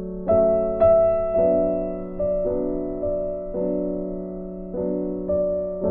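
Background music: slow keyboard chords, struck about once a second and left to ring and fade.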